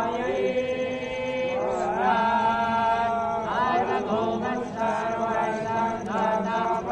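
A group of worshippers chanting a Hindu devotional mantra in unison, holding long melodic notes that rise and fall.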